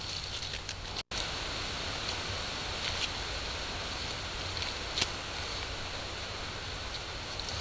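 Steady hiss and low hum of a trail camera's recording, with a few faint clicks, the sharpest about five seconds in. The sound drops out for an instant about a second in.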